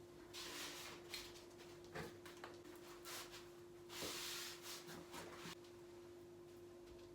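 Fiberglass wallcovering being handled and worked on the wall: a string of short rubbing, rustling strokes that stop about five and a half seconds in, over a faint steady hum.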